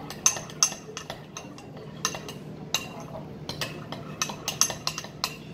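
A spoon stirring thick slime glue in a glass measuring cup, clinking against the glass in quick, irregular taps, about two or three a second.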